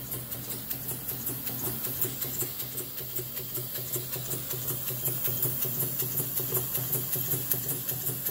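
Schoenner 100/7 model vertical steam engine running on compressed air at about 5 psi, its exhaust puffing in a quick, even rhythm, over a steady low hum.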